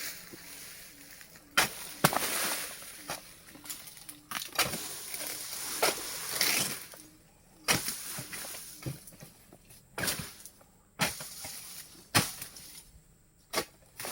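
Oil palm fronds and fruit bunches being cut down: a series of about ten sharp cracks and thuds, several followed by a spell of leafy rustling and crashing as they come down.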